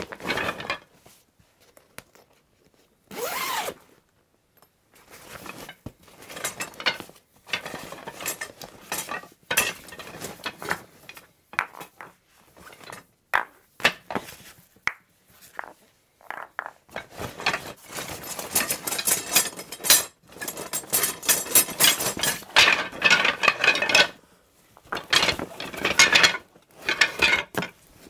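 Rummaging through a croquet bag: rustling and handling noises with irregular knocks and clicks of the gear inside. The sounds come in short, scattered bursts at first and grow busier and louder in the second half.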